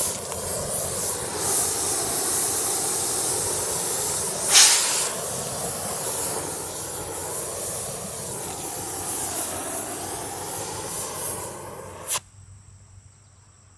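Oxy-fuel torch flame hissing steadily as it heats a tractor flywheel ring gear to expand it for fitting, with a brief louder burst about four and a half seconds in. The hiss cuts off abruptly near the end.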